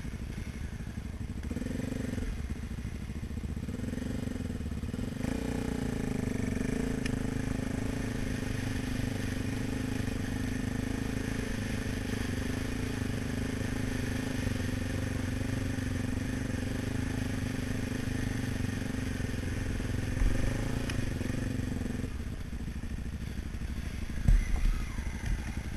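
Honda XR250 Tornado dirt-bike engines, single-cylinder four-strokes, running close to the microphone. The engine is low at first, then runs steadily under way for most of the time and drops back near the end, with a couple of short knocks.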